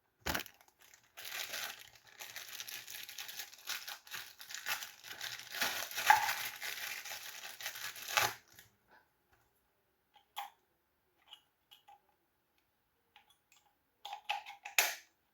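Plastic packaging crinkling and rustling for several seconds as it is handled and pulled open, then a few light clicks and taps near the end.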